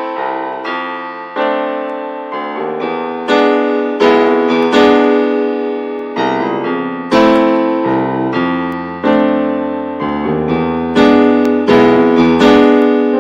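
Background music: chords and single notes struck at an unhurried pace, each fading away after it is struck.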